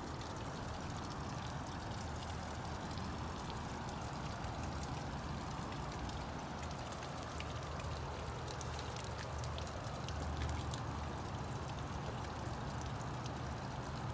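Steady rain falling, with many small drop ticks close by over an even hiss and a steady low rumble underneath.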